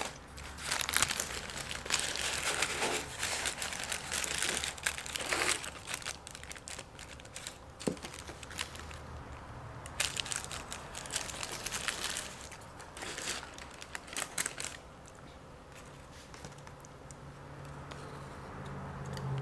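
Food packaging crinkling and rustling as it is handled, in irregular bursts that die down after about fifteen seconds.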